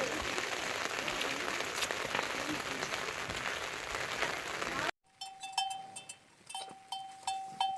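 Steady rain hissing. About five seconds in it cuts off abruptly, and a quieter sound follows: a high ringing note repeated several times, with short sharp ticks.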